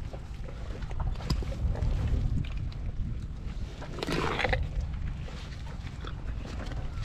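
Asian elephant crunching a whole pumpkin held in its trunk and mouth, heard close up. There is a louder crunch about four seconds in, over a steady low rumble.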